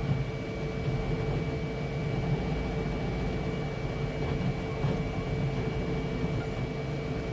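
Flashforge Adventurer 5M Pro 3D printer printing at high speed: a steady mechanical hum with constant whining tones from its motors and fans as the print head moves.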